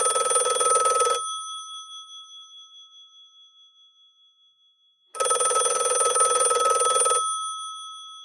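Telephone bell ringing: a rattling ring that stops about a second in and fades out, then a second ring of about two seconds starting about five seconds in, which also fades away. It is an incoming call to a home telephone.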